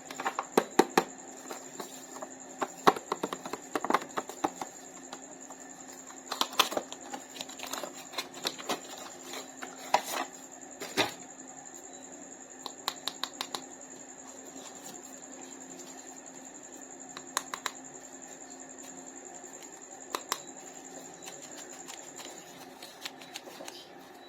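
Irregular clicks and taps of plastic toys and packaging being handled, bunched in the first half and sparse after, over a faint steady hum that cuts out near the end.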